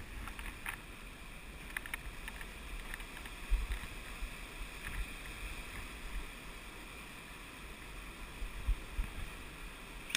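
A small rocky stream running over stones, a steady rush of water, with low thumps of movement and wind on the microphone, the biggest about a third of the way in and again near the end.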